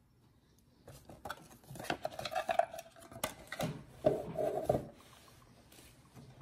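Clear hard-plastic card cube box being picked up and handled: plastic clicking, knocking and scraping that starts about a second in, with two squeaky rubbing scrapes.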